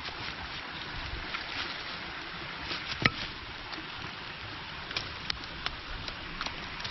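Steady rushing of a mountain stream, with scattered sharp clicks and snaps over it, the loudest about three seconds in and several more near the end.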